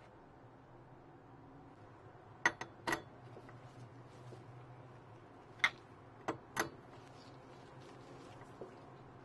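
Two quick runs of about three sharp clicks and taps each, from handling a hedge trimmer's ignition coil against the flywheel while its air gap is set with a paper shim, over a faint steady hum.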